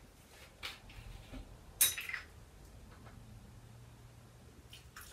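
Small clinks of a measuring spoon against a vanilla bottle while vanilla is measured out: a few light ticks, with one sharp, ringing clink about two seconds in.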